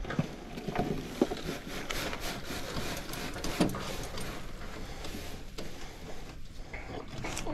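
A wheelbarrow being tipped to dump a load of dirt: rubbing and scraping as the soil slides out, with scattered knocks, one clearer knock about halfway through.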